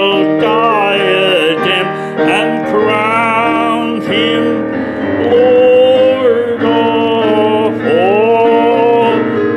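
A hymn sung by male and female voices with piano accompaniment, the notes held with a wavering vibrato.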